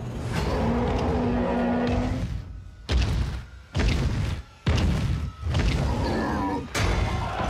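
Film-trailer soundtrack: sustained pitched music for about two seconds, then four heavy booming hits with short gaps between them.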